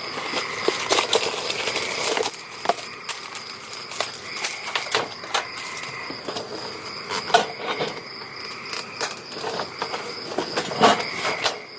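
Rustling and crinkling of a frozen meal's packaging as it is handled and opened, in irregular sharp crackles, over a steady chirping of crickets.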